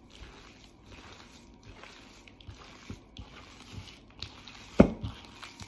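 Hands kneading a wet minced-meat stuffing in a bowl: soft, uneven squishing with small clicks, and one sharp knock just before the end.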